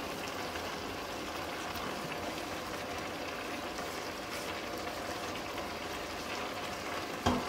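Steady bubbling hiss of spaghetti and garlic-oil sauce heating in a steel pot on the hob, with a sharp knock near the end.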